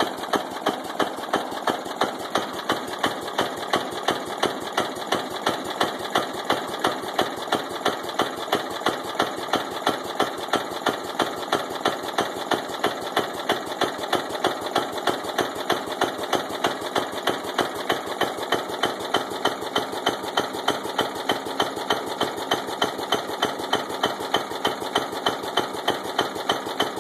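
Briggs & Stratton engine of a 1989 Murray lawn tractor running steadily with a sharp, regular knock about three times a second: a bad connecting rod (rod knock).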